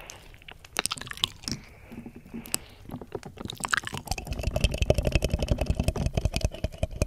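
Wet mouth clicks and licking sounds pressed right against a 3Dio binaural microphone's ear. About four seconds in, these give way to fast, rhythmic scratching and rubbing of long nails and fingertips over the mic's silicone ear.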